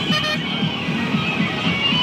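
Music with a fast, steady beat.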